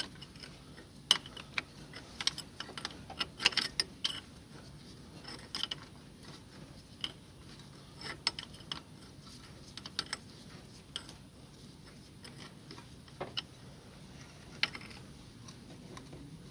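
Irregular metallic clicks and taps of spanners and a homemade threaded puller being fitted onto a car AC compressor's clutch plate, many in the first few seconds and only a few later on.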